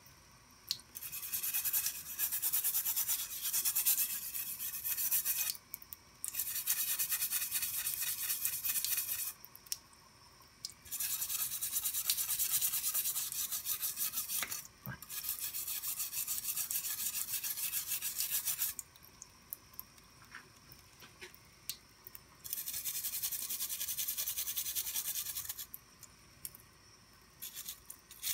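A rusty steel knife blade being scrubbed wet with an abrasive to take off the rust: rapid back-and-forth rasping strokes in five long spells of a few seconds each, with short pauses between. A thin faucet stream runs faintly in the pauses.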